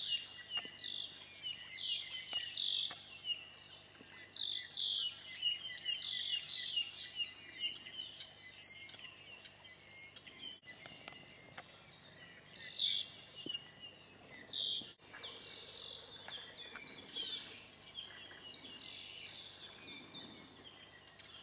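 'I'iwi (Vestiaria coccinea) calling: a string of short high notes, many in the first half, sparser in the middle and busier again near the end.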